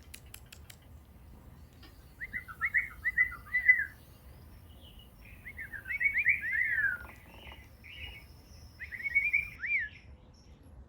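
Downy woodpecker calling: three bursts of rapid, sharp, slightly falling notes, after a quick run of taps at the start.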